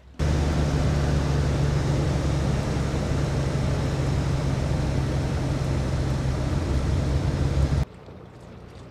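Seaplane engine running loud and steady, with a deep hum under a wide rushing noise; it starts and cuts off abruptly, about a second in and near the end.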